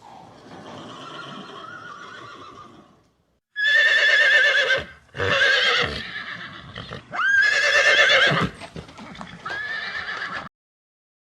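Horse whinnying: a quieter, wavering call, then after a short pause four loud neighs in quick succession, each quavering in pitch.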